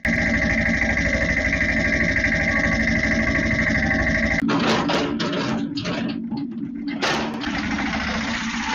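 Tractor engine running steadily with a pulsing low chug. About four and a half seconds in, an irregular crackling, scraping noise joins it over the continuing drone.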